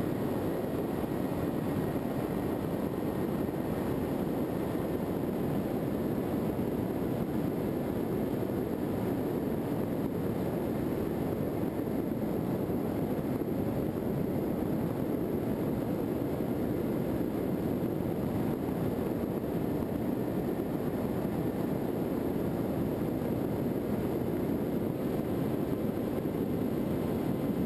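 Skywalker FPV model plane's electric motor and propeller running steadily under power, mixed with rushing airflow on the onboard camera's microphone. A faint steady whine sits above the noise.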